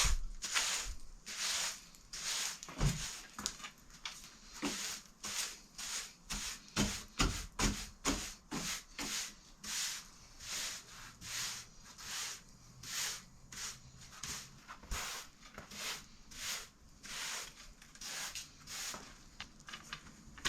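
Steady back-and-forth rubbing strokes, about two a second, with a few knocks in the first half.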